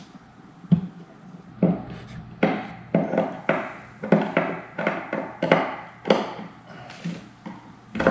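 Hand screwdriver turning screws into an IKEA Lack coffee table: a series of short creaks and clicks, about two a second, as each twist drives the screw home.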